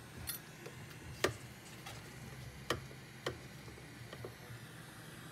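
A few sharp, light clicks, the loudest a little over a second in, as the NAND memory chip is worked loose and lifted off an iPhone 6S logic board during hot-air desoldering, with a low steady hum underneath.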